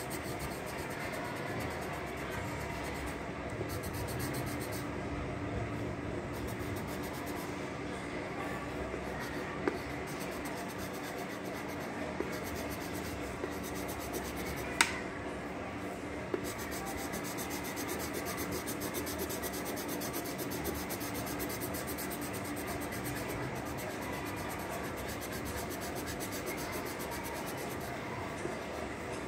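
Pencil sketching on paper: continuous scratching and rubbing strokes, with a few light taps and one sharper click about fifteen seconds in.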